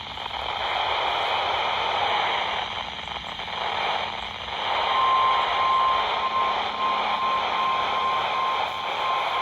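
Steady radio static hiss from a weather radio receiver on a weak signal. About five seconds in, a faint steady high tone comes in under the hiss.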